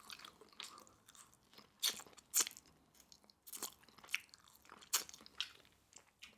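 Close-miked chewing of a Cajun-sauced prawn: soft, wet mouth sounds broken by a few sharp, crunchy clicks.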